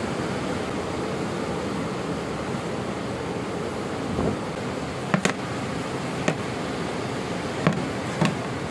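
A steady hiss, with about six sharp knocks in the second half, two of them close together.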